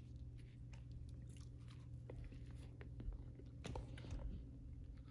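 A person faintly chewing a bite of a white-bread sandwich, with small scattered mouth clicks, over a steady low room hum.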